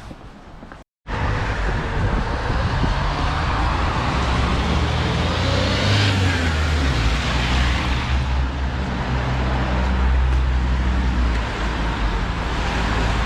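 Road traffic close by, starting abruptly about a second in. A motor vehicle passes with its pitch rising to a peak around six seconds in and then falling, over a steady low engine drone.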